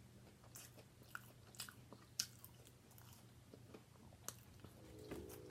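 Faint close-up chewing and biting of chicken strips, with a few short crunches and mouth clicks scattered through.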